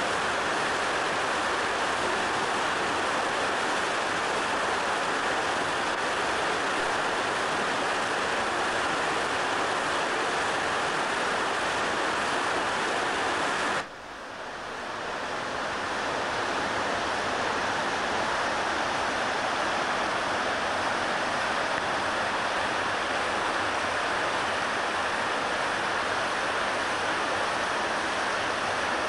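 Steady rush of fast-flowing water from a stream or waterfall. It drops out abruptly about halfway through and swells back over a couple of seconds.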